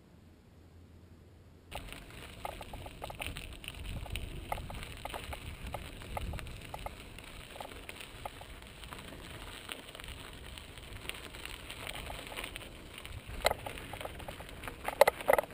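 After a brief near-silent moment, a mountain bike rolls over a gravelly trail: a steady crackle of tyres on grit with small rattles from the bike and a low rumble. Louder clatters come near the end as it goes over a rough, rocky stretch.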